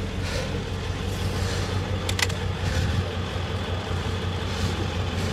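Vehicle engine idling, a steady low rumble, with a brief click about two seconds in.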